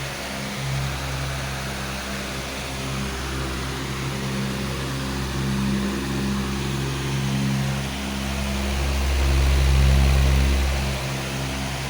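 Powerful electric fan running steadily: a rush of air over a low motor hum, with a deeper rumble that swells about nine seconds in and eases off near the end.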